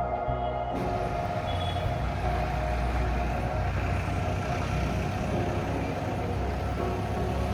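Steady road-traffic noise, a low rumble with a hiss of passing vehicles, starting suddenly about a second in, with soft ambient background music continuing underneath.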